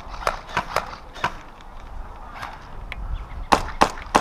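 Airsoft guns firing single shots: about eight sharp, irregularly spaced cracks, the two loudest close together near the end.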